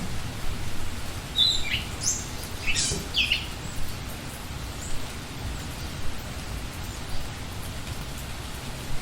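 Steady rain falling with scattered drips, and a bird giving a few short chirps, falling in pitch, about one to three and a half seconds in.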